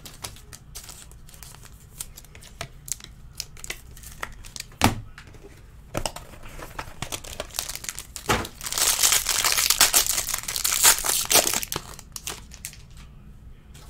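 Cards and plastic being handled, with scattered light clicks and taps. From about eight seconds in comes a loud, dense crinkling and tearing of clear plastic wrap as it is pulled off a trading-card pack. It dies down shortly before the end.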